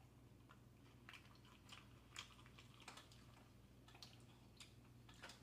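Faint close-up chewing of seafood, with small irregular wet clicks about twice a second.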